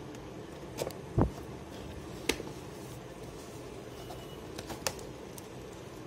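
Cardboard delivery box being handled and opened by hand: a few scattered knocks and clicks, the loudest a dull thump just over a second in.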